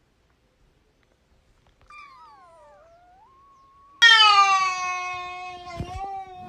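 Domestic cat meowing: a soft call that dips and rises in pitch, then a long, loud meow that starts suddenly and holds a steady pitch, with a brief knock near its end.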